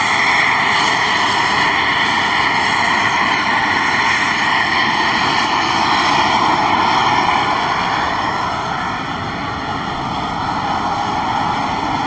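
Steam jetting out of the ground from volcanic fumarole vents: a loud, steady hiss without a break.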